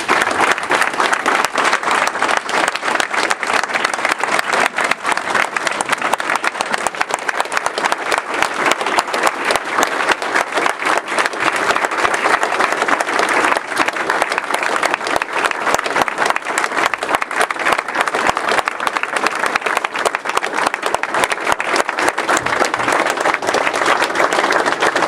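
A roomful of people applauding, dense clapping that starts abruptly and keeps going at full strength without dying away.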